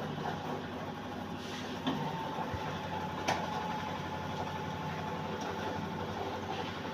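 An engine running steadily, as on road-construction machinery, with one sharp click a little after three seconds in.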